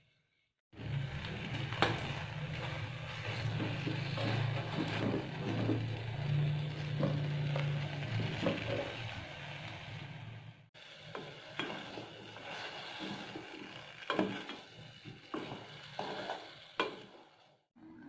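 Strawberries and sugar cooking in a stainless-steel pot over a gas flame: a steady sizzle with a low hum. After a break about ten seconds in, a spoon stirs the fruit, knocking now and then against the pot.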